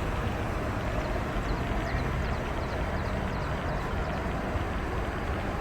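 Steady outdoor rumble of vehicle engines and traffic, with a faint low engine hum in the middle and a few faint high chirps in the first half.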